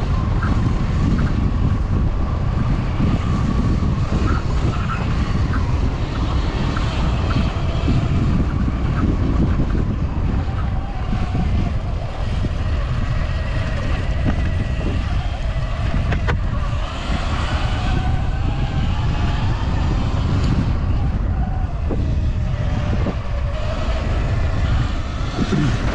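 Wind buffeting the microphone of a moving rider, over the faint whine of a Sur-Ron electric dirt bike's motor that slowly rises and falls in pitch with speed.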